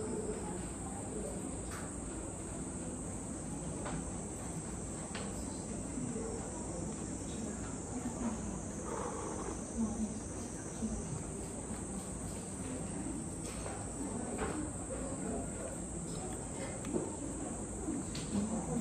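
A steady high-pitched drone of cicadas, with a few short light knocks of a lacquered bowl and chopsticks being handled at the table.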